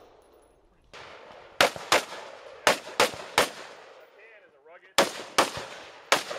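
Gunshots fired in quick strings, about ten in all, each with a short echo: two or three fast shots, a pause, then more strings near the end.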